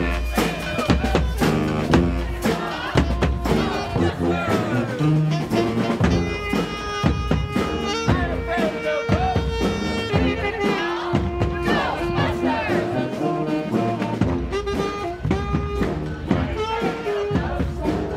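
Live brass band playing, horns holding and trading notes over a drumbeat.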